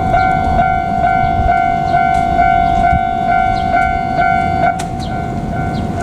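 Japanese level-crossing warning bell ringing, a repeated electronic 'kan-kan' tone at a little over two strokes a second, over a low rumbling noise. A sharp click sounds near the end.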